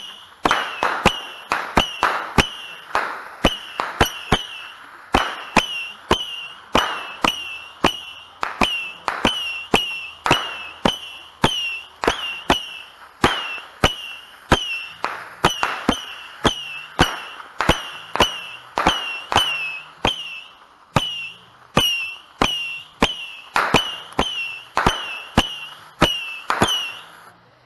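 A 100-shot Saturn missile battery firing: a sharp bang about twice a second, each with a brief, slightly falling whistle. The volley stops near the end.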